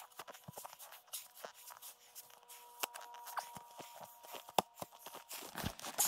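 Snow crunching and scraping in short, scattered crunches as the snow at a shelter entrance is dug out and tramped down, growing denser and louder near the end.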